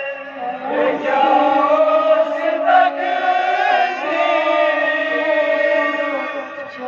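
Men chanting a noha, a Muharram lament, together in long held notes.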